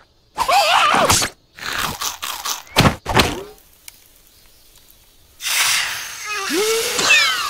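Animated cartoon sound effects and wordless character voices: high wavering squeals, two sharp thuds a little under three seconds in, then a hissing whoosh with more rising, wavering cries near the end.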